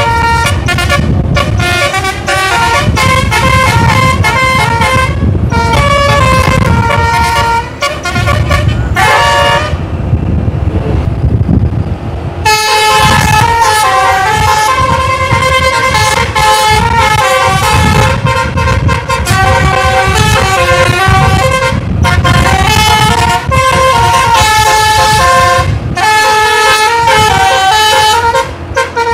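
Bus 'telolet' multi-tone horn (basuri) playing a long string of quick, stepped melodies. The tooting stops for about two seconds around a third of the way through, then starts again, with a low rumble underneath throughout.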